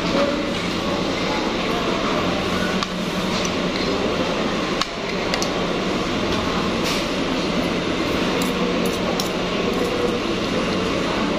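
Restaurant din of many background voices over a steady low hum, with a few light clinks of a metal spoon and fork against a plate, most of them in the middle of the stretch.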